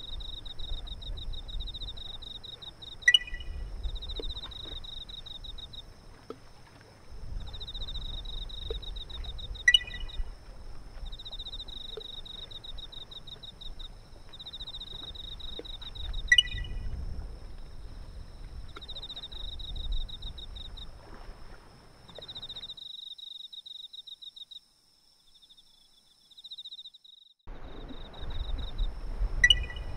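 Outdoor night ambience: insects trilling in repeated pulsed bursts over a steady faint high whine, with a short sharp chirp about every six or seven seconds and a low rumble of wind or surf underneath. The rumble drops out for a few seconds about three-quarters of the way through.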